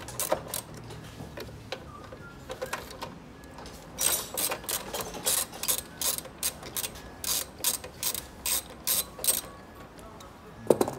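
Hand socket ratchet wrench clicking as a bolt is turned on the radiator and condenser support. A few scattered clicks come first, then a steady run of about three clicks a second from about four seconds in, and a sharper knock just before the end.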